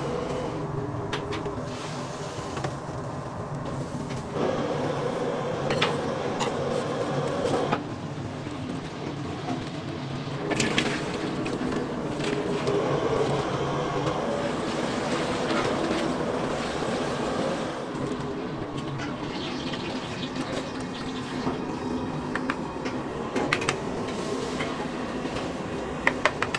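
Steady rushing noise of a busy kitchen: boiling water over burners, with splashing, wet food sliding and metal utensils clinking now and then.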